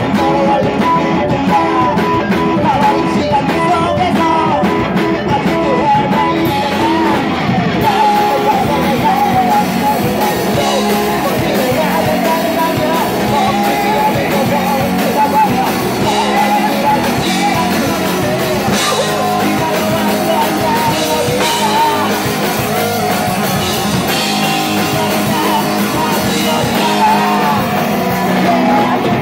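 Three-piece rock band playing live and loud, continuously: electric guitar, bass guitar and drum kit.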